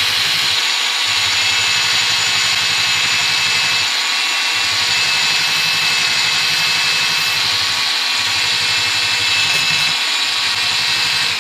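Cordless angle grinder fitted with a finger belt sander attachment running steadily, its sanding belt working on a crankshaft journal, a continuous whine with a sanding rasp.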